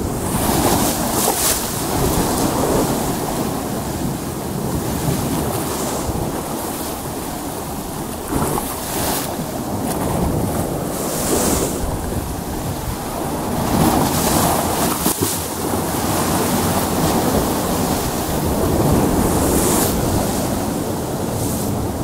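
Rough sea surging against a rocky shore: a continuous rush of surf, with waves breaking and hissing up in surges every few seconds.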